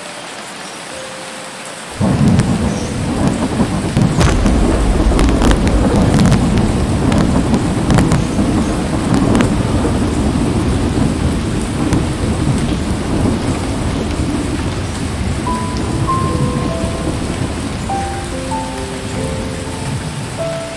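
Heavy rain and flowing flood water heard through a phone's microphone: a loud, rumbling hiss that starts suddenly about two seconds in, with a few sharp knocks in the middle. A light music tune plays in the first two seconds and comes back over the noise near the end.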